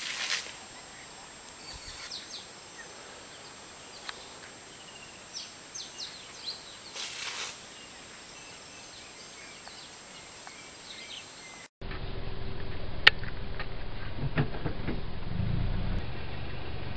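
Quiet outdoor ambience with scattered short bird chirps. About two-thirds of the way in it cuts to a louder steady low hum with a single sharp click.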